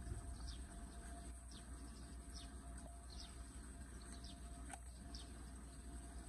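A bird calling with short, high notes that fall in pitch, repeated about once a second, over a steady low rumble.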